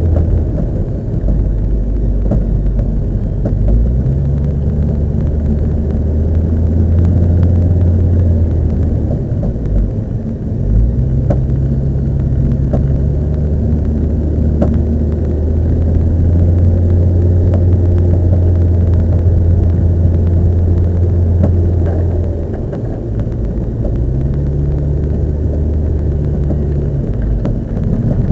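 Car on the move with a steady low rumble, and a few short, sharp knocks at irregular moments from the aftermarket coilover suspension. This is an abnormal noise that the owner takes as a sign the coilovers are worn and due for replacement.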